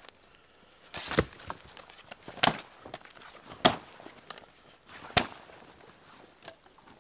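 Sticks being snapped by hand: four sharp cracks over about four seconds, the first a longer splintering break.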